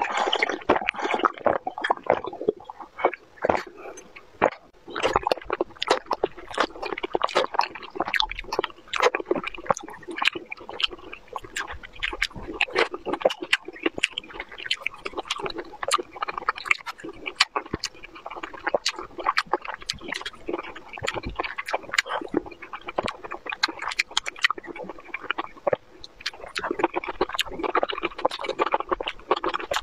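Close-miked eating and drinking: wet chewing, slurping and lip smacks of juicy fruit, red bayberries and cherry tomatoes, with many sharp mouth clicks throughout.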